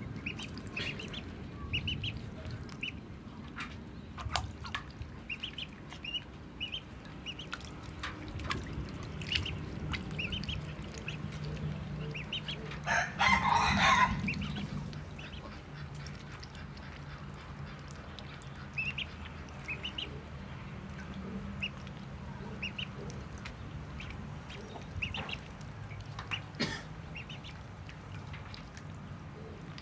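Ducklings peeping, short high calls scattered throughout. A louder noisy burst lasting about a second comes about 13 seconds in.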